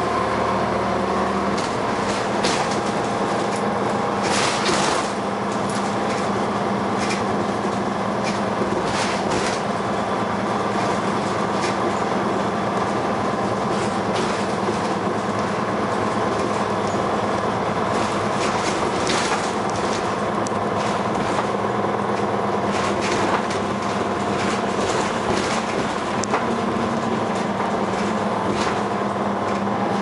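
Dennis Arrow double-decker bus heard from inside the passenger saloon while under way: the diesel engine and drivetrain running steadily, with frequent clicks and knocks from the bodywork and fittings.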